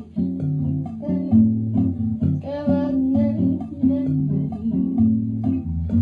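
Acoustic classical guitar playing bossa nova: plucked chords over a bass line, the chord changing about every second.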